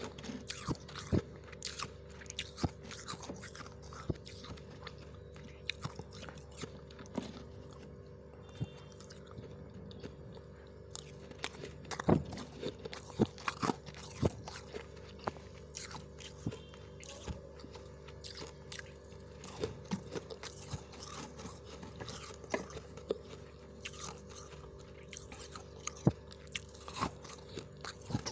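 Close-up crunching as freezer frost is bitten and chewed, in irregular sharp crunches with pauses between them. A steady low hum runs underneath.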